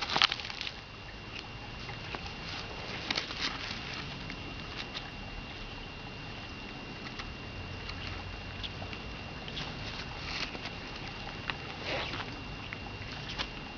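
Tortoise biting and chewing a cherry tomato: scattered soft, wet clicks and crunches from its jaws.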